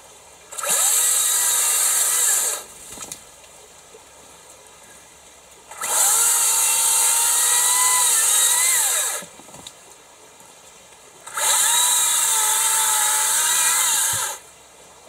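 Makita 36 V (twin 18 V) brushless battery chainsaw cutting through a hard tea tree log in three bursts, each starting and stopping abruptly. Its high whine sags in pitch as the chain bites into the wood and picks up again as it comes free.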